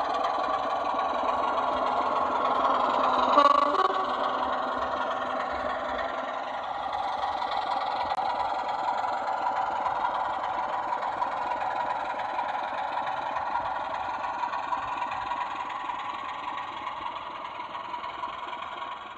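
Sound-fitted SLW Class 24 model diesel locomotive playing a recorded Sulzer diesel engine running steadily, heard through the model's small speaker with no deep bass. There is a brief louder tone about three and a half seconds in, and the sound eases slowly near the end.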